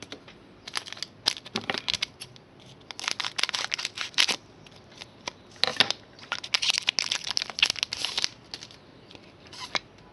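A trading-card pack's wrapper being torn open and crinkled, with the cards inside handled: several spells of sharp crinkly rustling and tearing with small clicks.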